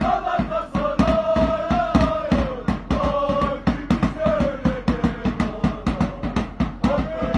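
Football supporters chanting in unison with long held notes over a fast, steady drum beat of about five strokes a second.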